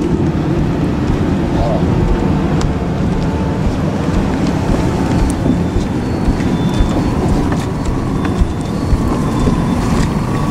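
Interior running noise of an SŽ class 510 Stadler FLIRT 4 electric multiple unit: a steady rumble of wheels on rail with scattered light clicks, and a faint whine that rises in pitch from about nine seconds in.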